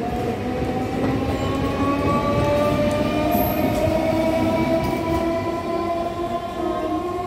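Suburban electric multiple-unit train running past the platform, with a rumble of wheels on the rails. Over it, a whine from the traction motors rises slowly in pitch as the train gathers speed.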